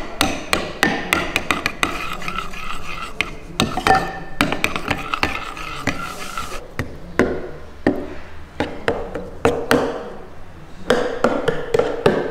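Metal spoon stirring a thick sauce in a ceramic bowl, scraping along the bowl and clicking against its sides again and again, at an irregular pace.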